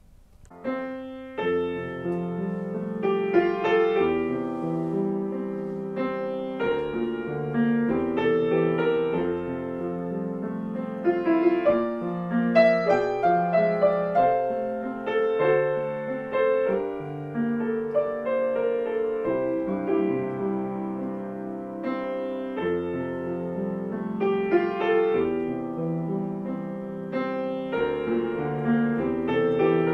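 Background piano music, starting about a second in.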